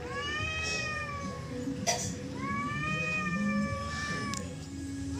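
Domestic cat yowling in a territorial standoff: two long, drawn-out wails, each rising then slowly sinking, with a short sharp click about two seconds in.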